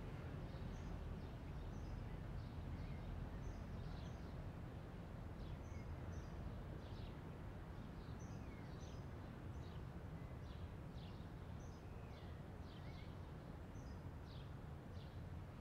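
Birds chirping quietly over a steady low rumble of background noise, with many short, high chirps scattered throughout.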